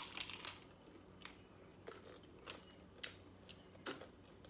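Crunchy hard corn taco shell being bitten and chewed: a sharp crunch at the bite, then a string of short crunches about every half second to second as it is chewed, with another loud one near the end.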